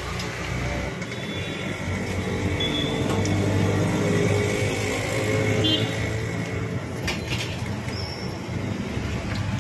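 Street traffic with a motor vehicle engine running close by, swelling for a few seconds in the middle, over the hiss of batata vadas deep-frying in a kadai of hot oil.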